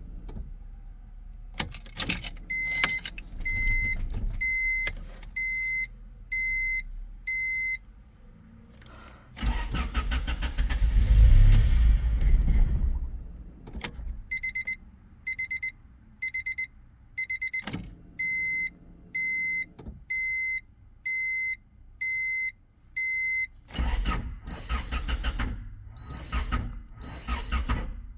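A 1996 Honda Civic's warning chime beeps evenly, about one and a half beeps a second, in two runs. Keys jangle and clicks are heard. Between the runs of beeping, a low engine rumble swells for about four seconds and dies away, fitting an engine that catches and stalls.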